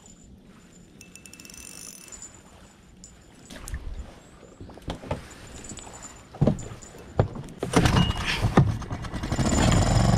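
Knocks and clatter of gear being handled in a small plastic boat. Near the end a small outboard motor starts running with a steady low hum.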